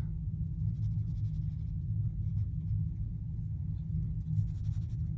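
Faint, scratchy strokes of a water brush's bristles dabbing watercolour onto paper, then working paint in a palette pan about four seconds in, over a steady low hum.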